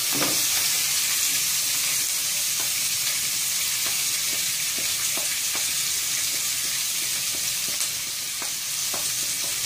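Sliced onions sizzling steadily in hot oil in a pot, stirred with a wooden spoon that gives occasional light clicks.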